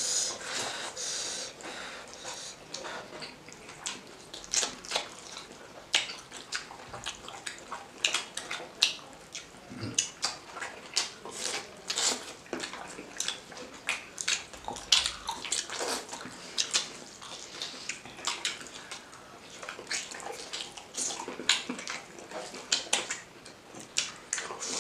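Close-miked wet chewing and lip smacking of people eating chicken curry with rice by hand, with the squelch of fingers working rice into the gravy: a steady run of irregular short smacks and clicks.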